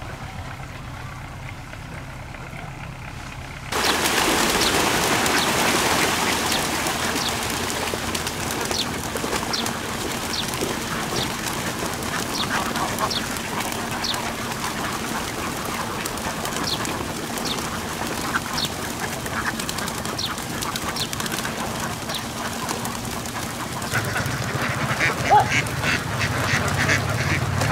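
A huge flock of domestic laying ducks quacking and calling all at once over a thick, constant din of many birds crowding together. The sound jumps suddenly louder about four seconds in, and a low steady hum joins near the end.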